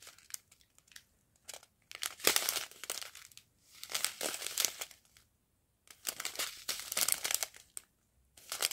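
Clear plastic sachets of diamond-painting beads crinkling as they are handled, in several bursts about a second long with short pauses between them.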